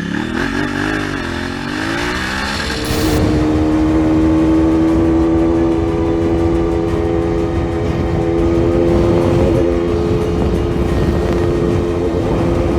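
Motorcycle engine with revs rising and falling, then from about three seconds in holding steady at high revs as a KTM RC 200's single-cylinder engine pulls at speed.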